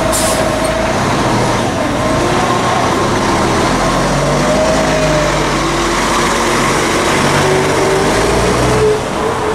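Volvo B10M-55 bus's underfloor six-cylinder diesel engine running at a stop and then pulling away through its ZF Ecomat automatic gearbox, the engine note rising as it gathers speed. A brief hiss right at the start.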